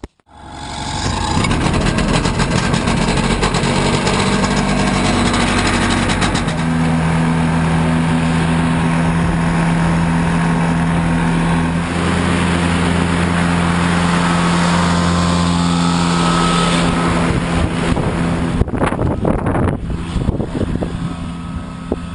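Ultralight aircraft's engine and propeller running loud, coming up from quiet over the first second or two, then holding a steady pitch; the sound grows rougher and less even near the end.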